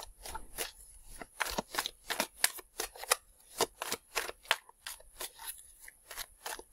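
A deck of tarot cards being shuffled by hand: a quick run of sharp, irregular card snaps, about two or three a second.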